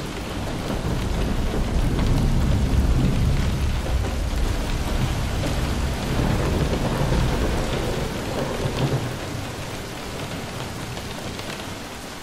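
Steady rain with a long, low roll of thunder, loudest in the first few seconds and easing off after the middle.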